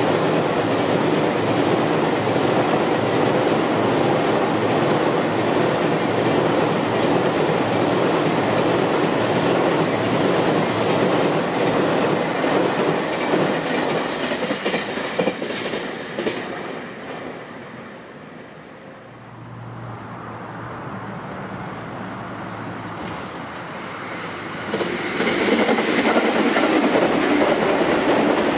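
Container wagons of a long freight train rumbling and clattering over a steel girder bridge, with a rhythmic clickety-clack of wheels on rail joints. The sound falls away after about 16 seconds to a quieter lull. Near the end a second train's rumble comes in loudly as an electric commuter train crosses the bridge.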